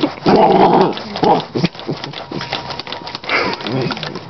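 Dog making playful noises at a carpet-cleaning tool: a long pitched call through most of the first second, then shorter calls about a second and about three seconds in, amid small clicks.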